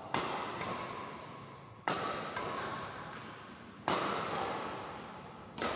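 Badminton rally: four sharp racket hits on the shuttlecock, about two seconds apart, each followed by the hall's long echo.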